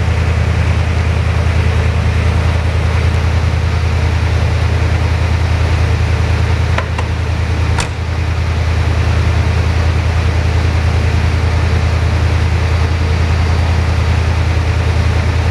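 1982 Chevrolet Corvette's 350 V8 with a four-barrel carburetor idling steadily. Two short clicks about a second apart just past the middle.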